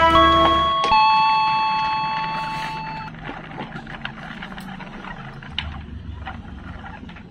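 A train horn sounding several notes at once, its pitch stepping twice in the first second, then fading away over about two seconds. Faint scattered ticks follow.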